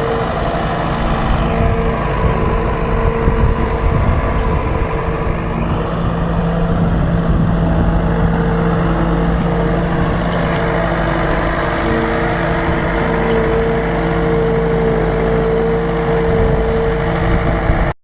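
Farm tractor engine and machinery running steadily with a constant whine over the engine noise; the sound cuts off abruptly at the end.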